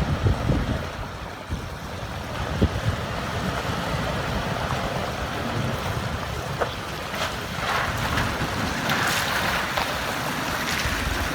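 Ford Ranger pickup driving over a rough off-road track: a steady low rumble with scattered knocks, and wind buffeting the microphone.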